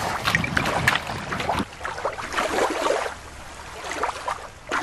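Water splashing and lapping at the river's edge, with several short splashes in the first second or so, then a softer steady wash.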